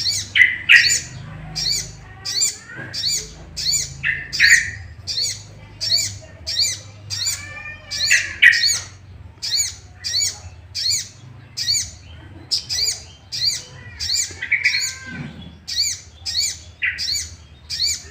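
Crimson sunbird (sogok ontong) giving a rapid run of sharp, high calls, about two a second, with lower, fuller notes every few seconds: its agitated, aggressive calling, used as a lure to provoke other males.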